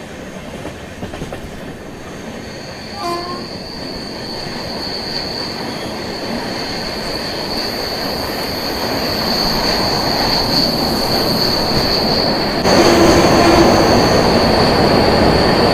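Train running with a steady high-pitched wheel squeal over the rolling rumble, which grows steadily louder and jumps up abruptly about three-quarters of the way through.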